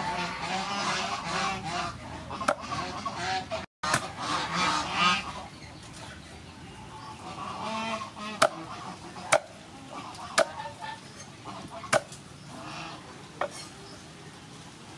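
Cleaver chopping through boiled cow leg on a wooden chopping board: sharp single chops, about five in the second half, roughly a second apart. Before them, repeated bird calls dominate.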